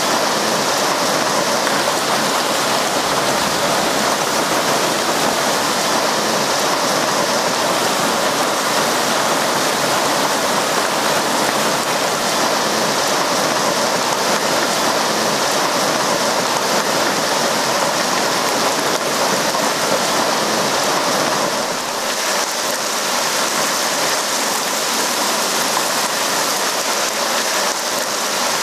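Heavy rain and hail from a severe thunderstorm pouring down, a dense steady hiss of water and stones striking the ground, roofs and foliage. It eases slightly about 21 seconds in.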